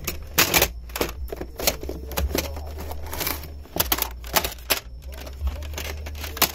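Plastic CD jewel cases clicking and clacking against each other as they are flipped through by hand, in a run of irregular sharp knocks.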